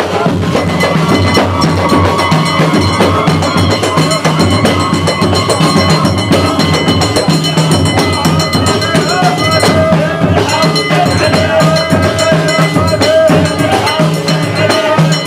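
Music with drums and percussion keeping a steady beat under a wavering melody.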